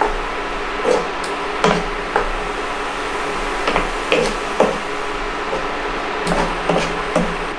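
Wooden spatula scraping and knocking against a frying pan as diced vegetables are stirred, in irregular taps. Under it runs the steady hum of the portable induction hob, which is a bit noisy while it heats.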